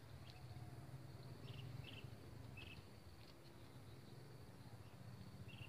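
Near silence: faint outdoor ambience with a low steady hum and four faint short, high chirps.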